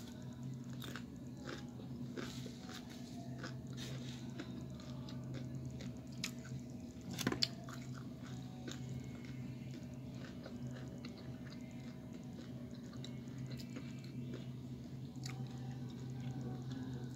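Close-up chewing and crunching of crisp tortilla chips, a run of irregular crisp crunches with one sharper crunch about seven seconds in. A steady low hum runs underneath.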